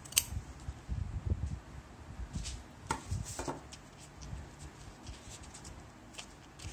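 Freshly sharpened fabric shears closing with one sharp snip just after the start. After that comes light handling noise: scattered small ticks and knocks, and a couple of brief rasps around the middle as the shears are laid down on the cloth and the fabric is handled.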